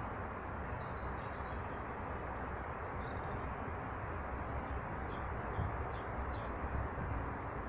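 Small birds chirping and twittering in short high notes, in two spells: at the start and again about five seconds in, over a steady rushing background noise that is the loudest sound throughout.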